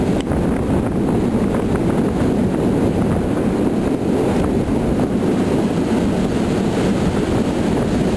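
Steady running rumble of a steam train's passenger coach moving along the track, heard from an open window with wind on the microphone.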